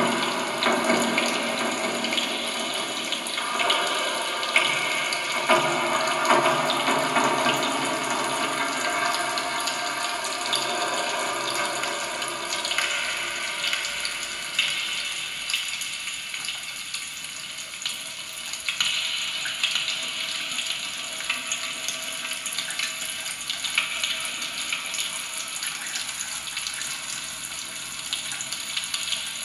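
Live experimental sound performance of amplified kitchen objects: a dense, water-like hiss full of fine crackles, as made with popping candy, a straw, a knife and modified kitchen tools. Held tones run under it for about the first twelve seconds, then the sound thins out and sits higher.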